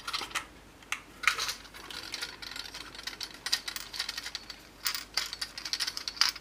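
Quick, uneven clicking and rattling of small hard parts: an ink pen and its tips being handled while a clogged tip is changed and cleaned.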